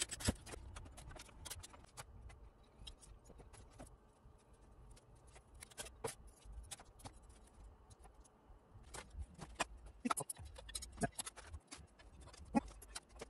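Faint, scattered small clicks and taps of screws, a screwdriver and metal parts being handled during amplifier reassembly, with a few sharper clicks late on.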